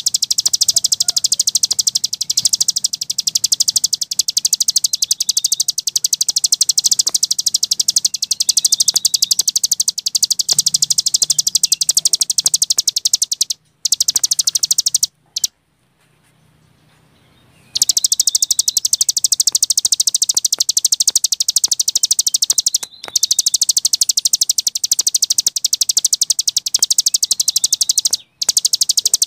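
Cici gunung songbird singing its fast, continuous ngebren trill, a dense stream of rapid high-pitched notes, with a few brief breaks and one pause of about two seconds about halfway through.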